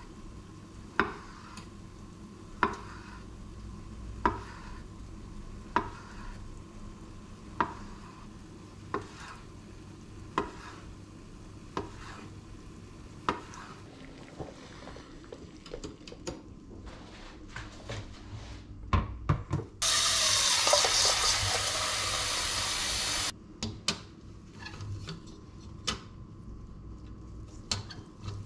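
A chef's knife slicing an avocado, its blade knocking on a bamboo cutting board about every second and a half. Later come scattered clinks of kitchen utensils, and a kitchen tap runs hard for about three seconds before cutting off suddenly.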